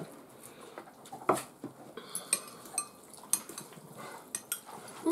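Spoons and forks clinking against a metal baking tray and glass bowls as noodles are served and eaten: scattered light clinks, one louder about a second in.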